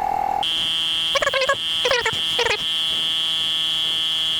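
Electronic tone from a coin-op tyre inflator at an air machine. It sounds steadily, jumps to a much higher pitch about half a second in and holds there, with three short warbling chirps in the first half.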